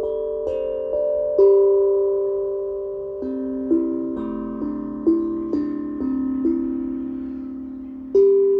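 Slow, meditative melody of single ringing notes on a pitched instrument, each note starting sharply and fading as the next comes in.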